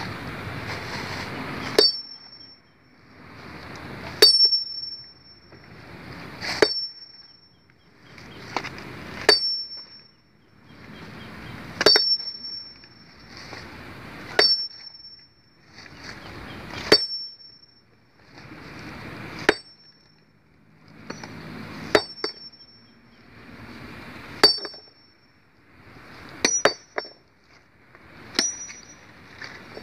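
A sledgehammer striking a long-handled steel stone-splitting chisel set on a boulder, with a sharp ringing clink about every two and a half seconds, a dozen blows in all. A rush of noise builds before each blow, and near the end the blows come in quick pairs.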